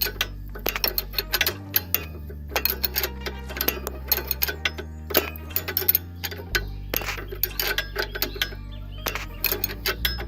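Irregular metallic clicks and clinks of a wrench working the nut of a car's stabilizer link, over background music with a steady bass line.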